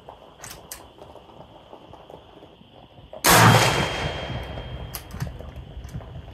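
A single shot from a homemade .222 Remington single-shot bolt-action benchrest rifle, about three seconds in, followed by a long echo that slowly fades away.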